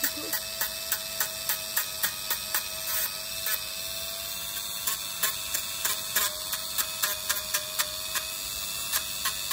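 Handheld rotary tool with a sanding drum running with a steady whine while it grinds down a dog's toenail. Short ticks come about two to three times a second as the spinning drum is tapped against the nail.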